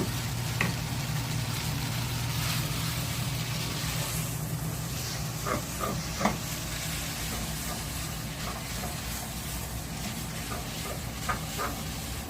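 Chow mein noodles sizzling in a hot pan while being stirred and tossed, with a few sharp clicks of the utensil against the pan over a steady low hum.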